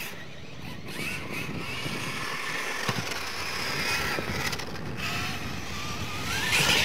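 Radio-controlled scale monster truck driving on loose dirt: its motor whines, rising and falling in pitch with the throttle, over the rough noise of the tyres on the dirt. Near the end the whine climbs as the truck speeds up.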